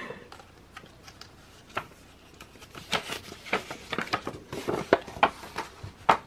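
Rustling and crinkling of K-pop album contents being handled: a string of short, irregular rustles starting about two seconds in, the loudest one near the end.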